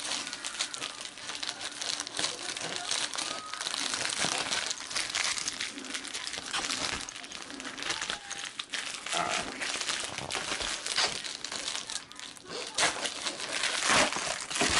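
Plastic mailer bag crinkling and rustling as hands rummage in it, with louder crackling near the end as it is lifted and shaken out.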